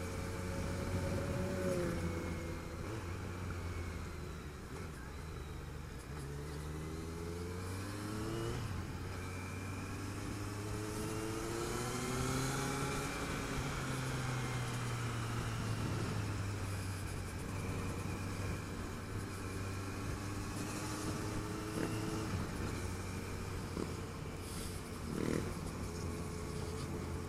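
Motorcycle engines running, a steady low hum under several rises and falls in pitch as the revs change.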